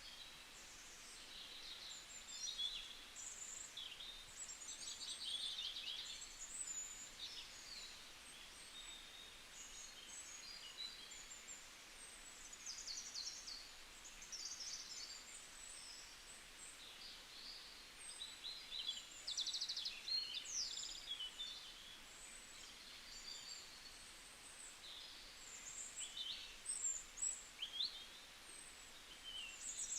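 Many songbirds calling and singing, a steady scatter of short chirps, trills and whistles over a soft forest hiss.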